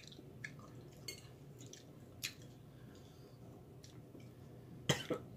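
Quiet eating at a table: soft chewing and mouth sounds with scattered small clicks, and one sharper tap about five seconds in.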